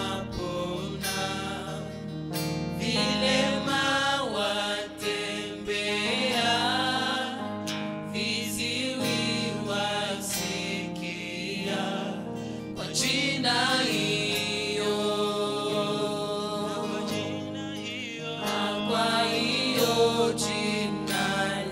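Several voices singing a Swahili gospel song together, accompanied by a strummed acoustic guitar.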